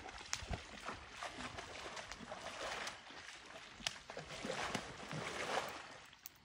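Horse's hooves splashing in shallow lake water as it steps and paws, in uneven bouts that swell twice and then fade out near the end.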